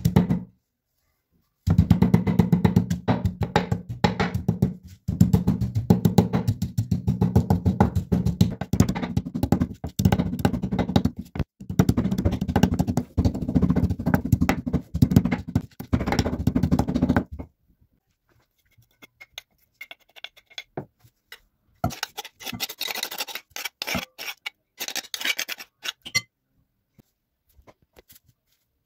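Wooden pestle pounding green chili, garlic and dill in a clay mortar: rapid repeated thuds for about fifteen seconds with a couple of short pauses, then stopping. A few lighter scrapes and rustles follow.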